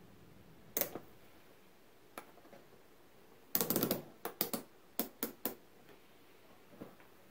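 Sharp clicks and knocks from an analogue multimeter and hand tools being handled on a wooden workbench. There is a single knock about a second in, a short clatter around the middle, then a quick run of separate clicks.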